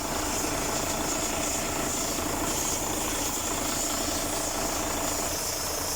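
Freshly overhauled Mercedes-Benz Actros diesel truck engine idling steadily, with an even low rumble and a steady high hiss.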